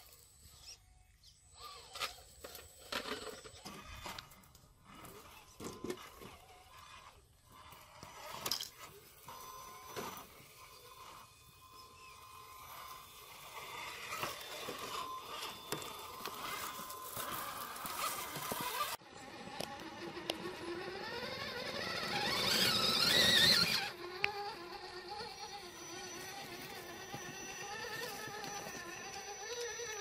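Electric motors and gear drives of 1/10-scale RC rock crawlers whining as they climb over boulders, with scattered clicks and scrapes of tyres and chassis on rock in the first half. The whine rises and grows loud a little over two-thirds in, then settles to a steady whine.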